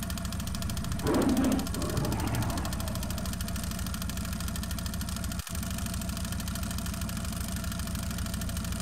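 Steady idling engine with a fast, even pulse. About a second in there is a louder, rough sound lasting about half a second.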